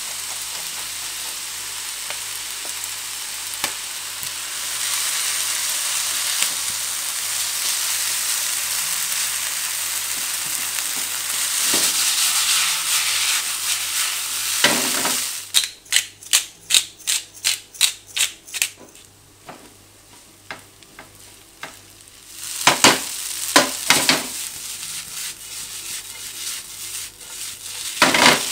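Kimchi fried rice sizzling in a nonstick frying pan, the sizzle growing louder. About halfway through comes a quick run of about a dozen sharp knocks of a utensil against the pan, roughly four a second, and a few more knocks follow later.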